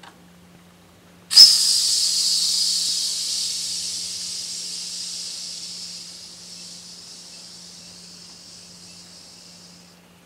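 Steam venting from the boiler of a Wilesco D6 model steam engine: a sudden loud hiss about a second and a half in that fades steadily over about eight seconds as the boiler pressure is let off.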